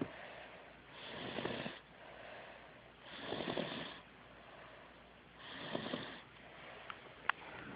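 Heavy snoring: three long, rasping snores about two seconds apart, with quieter breaths between them and a short click near the end.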